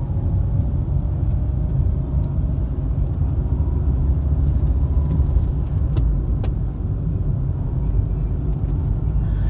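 Steady low rumble of a car's engine and tyres on the road, heard from inside the cabin while driving, with a couple of faint clicks about six seconds in.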